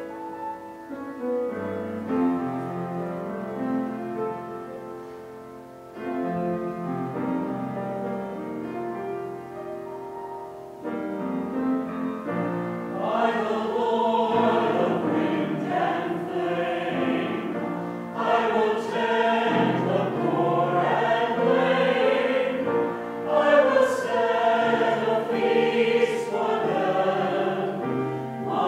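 Small mixed church choir singing with keyboard accompaniment. The accompaniment plays alone at first, and the voices come in about halfway through, after which the music is louder.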